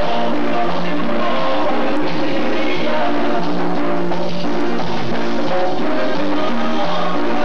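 A live band playing loud, steady music on electric bass, electric guitar and congas.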